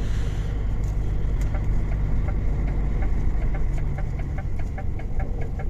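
DAF XF95 truck's diesel engine running under way on a snowy road, heard from inside the cab as a steady low rumble. About a second and a half in, a rapid regular ticking starts, about five ticks a second.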